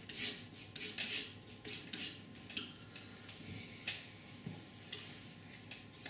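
Flexible painting knife scraping and spreading oil paint on a palette in a series of short, irregular scrapes, mixing a darker shade of the shadow colour.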